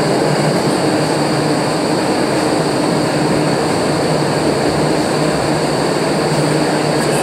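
Indoor skydiving wind tunnel running: a steady rush of air driven by its fans, with a constant hum of several fixed tones over it.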